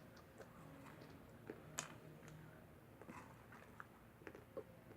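Faint chewing, with a few scattered soft mouth clicks against near-silent room tone.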